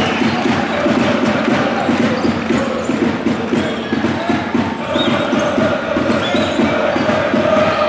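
Indoor basketball arena crowd hubbub of fans talking, with a basketball bouncing on the court.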